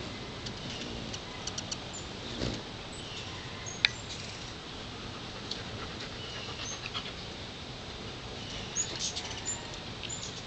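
Hummingbirds chipping and squeaking around a feeder: scattered short, high-pitched chips and squeaky notes, with a cluster of quick squeals about nine seconds in. A brief low whir comes about two and a half seconds in, and a sharp click just before four seconds.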